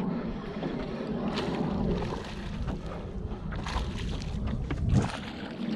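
Wind buffeting the microphone over lapping water, with splashes as a hooked flounder thrashes at the surface beside the boat, and a single thump about five seconds in.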